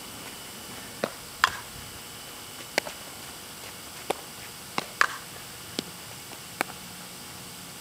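Softball fielding practice: a string of about eight sharp knocks and pops of the softball, spaced irregularly, over a steady hiss.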